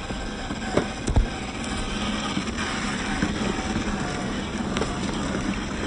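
Rochobby Mashigan 1/10-scale RC crawler driving over grass and gravel: a steady whir of its small electric motor and drivetrain with tyres crunching through the scrub, and a couple of sharp knocks about a second in.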